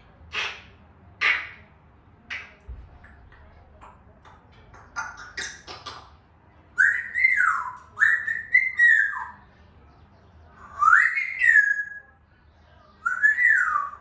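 African grey parrot vocalizing: a few sharp clicks and short chirps, then four loud whistles in the second half, each sliding up and back down in pitch, one rising and holding its note.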